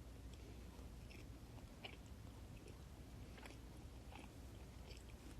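Faint, irregular chewing of a Chinese beef sandwich, soft mouth clicks and smacks over a low room hum.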